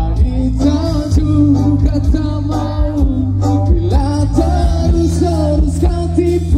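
Live band music over a large outdoor PA, heard from the audience: drums and bass under a bending lead melody line.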